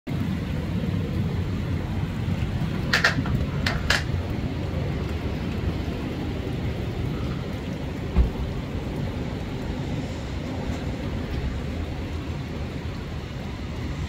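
Storm wind buffeting the microphone in gusts, a steady low rumble, with rain. A few sharp clicks come about three to four seconds in, and a single thump about eight seconds in.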